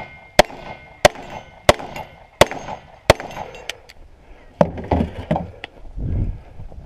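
Five handgun shots at an even pace, about two-thirds of a second apart. After them come heavy clunks and clatter as the pistol is dropped into a plastic dump barrel and a shotgun is taken up.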